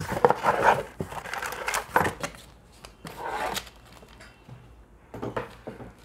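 Cardboard box and its packaging being handled and rummaged through: rustling and scraping in several short spells, with a few sharp knocks.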